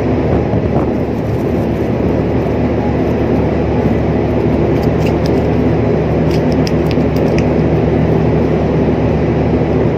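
Steady low drone of a large ship's machinery heard on deck, with a few light clicks about halfway through.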